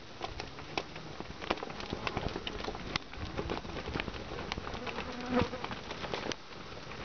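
Hooves of a small herd of cattle trotting over dry dirt: a continual, irregular patter of thuds and clicks.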